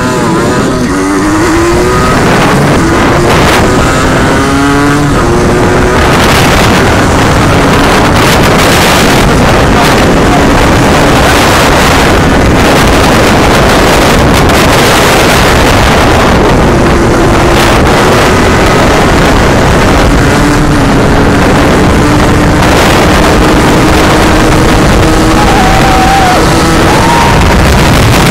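Heavy wind buffeting on the microphone over a motorbike engine running at road speed. The engine's pitch rises over the first five seconds as it accelerates, then holds fairly steady.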